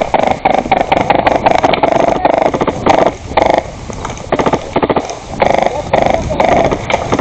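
Airsoft electric gun firing on full auto in repeated short bursts, a rapid buzzing clatter of shots with brief pauses between bursts.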